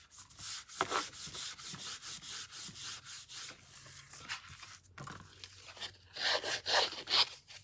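Paper being rubbed by hand: a quick, even run of dry rubbing strokes over a strip of cardstock. After a quieter spell, a few more scraping strokes come along a paper edge near the end.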